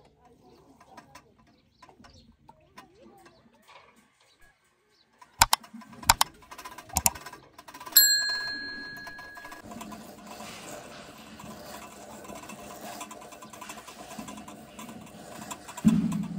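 A few sharp knocks, then a single bright metallic ring that dies away over about a second and a half, like metal being struck. A steady rustling hiss follows.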